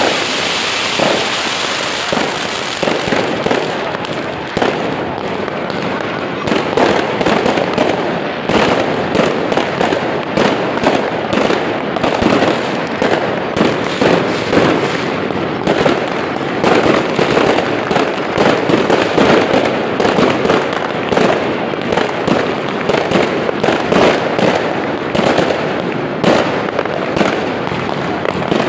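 Fireworks going off. A ground spark fountain hisses at first, then a dense, continuous barrage of bangs and crackles follows from aerial fireworks bursting overhead.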